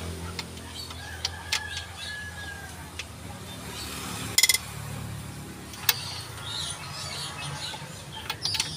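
Hand tools clicking and clinking against the metal of an opened-up engine's cylinder head as a wrench works the bolts: scattered sharp clicks, with one loud ringing metallic clink about halfway through.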